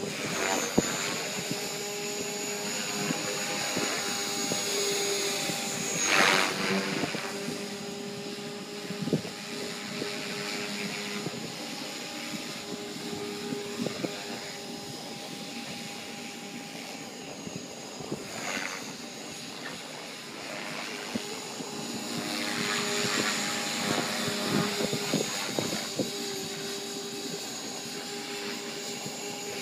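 Align T-Rex 500 Pro electric RC helicopter flying: a steady high whine from its brushless motor and gears runs under the hum of the spinning rotor blades. A few louder blade swooshes come and go as it manoeuvres.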